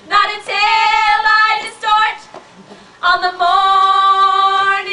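Two women singing together: a few short sung phrases, a brief break, then a long held note from about three seconds in.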